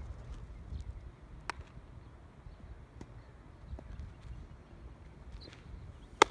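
Outdoor baseball practice sound: a low rumble of wind on the microphone with a few faint clicks, then one sharp, briefly ringing crack of a baseball impact just after six seconds.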